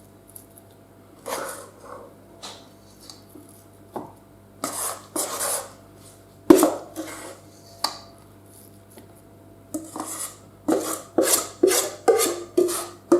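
A utensil scraping thick cake batter around a mixing bowl and into a loaf pan, in scattered strokes with a sharp knock against the bowl about six and a half seconds in, then quicker strokes of about two a second near the end.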